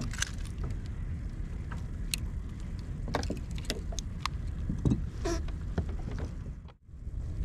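Steady low wind rumble on the microphone, with scattered light clicks and knocks and a brief dropout near the end.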